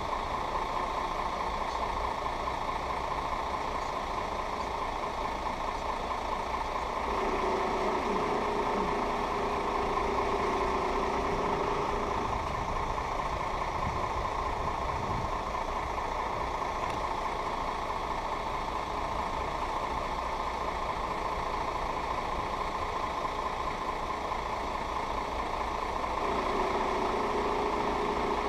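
Steady engine idling hum, with a low steady tone that comes in about seven seconds in, drops out around twelve seconds and returns near the end.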